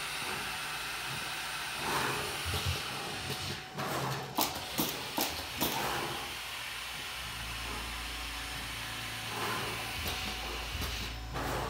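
Pick-and-place machine running its automatic placement cycle: a steady machine hiss with a run of sharp clicks about a third of the way in, and a low hum that sets in past the middle.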